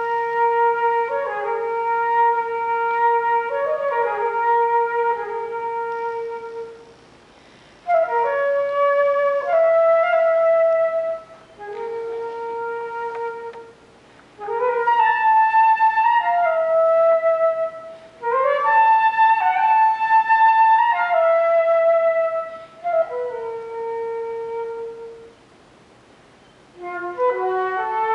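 Solo concert flute playing an unaccompanied classical piece. Held notes and short runs come in phrases, with brief pauses between them.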